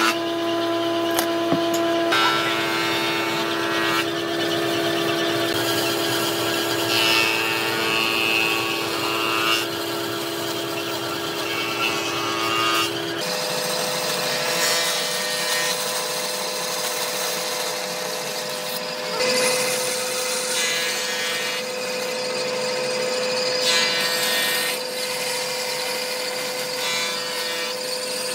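Band saw running and cutting through a thick board along a marked line: a steady motor tone under the rasp of the blade in the wood. About halfway through, the steady hum changes abruptly to a single higher tone.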